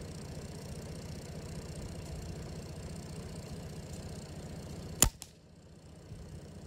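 A single shot from a .177 Benjamin Trail NP Mark II nitro-piston break-barrel air rifle: one sharp crack about five seconds in, followed a fraction of a second later by a fainter click. Before the shot there is only steady low background noise.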